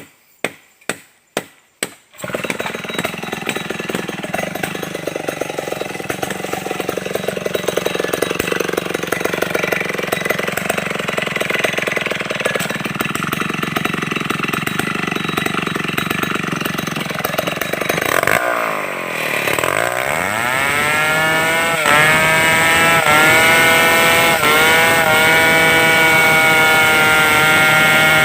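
Stihl 070 two-stroke chainsaw. After a handful of sharp knocks it runs loud and steady at a lower, wavering pitch, as if cutting under load. About eighteen seconds in it dips briefly, then revs up over a few seconds to a high, steady whine at full speed.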